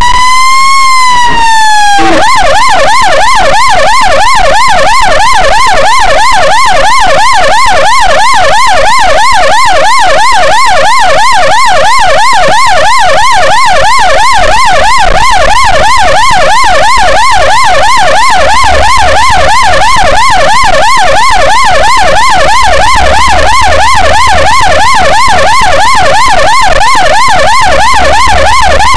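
Ambulance siren, very loud: a slow wail ending about two seconds in, then switching to a fast yelp that sweeps up and down several times a second, steady for the rest of the time. A low engine and road rumble joins in the second half.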